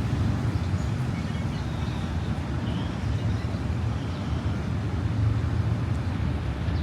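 Steady low rumble of background ambience with faint, indistinct voices, picked up while walking.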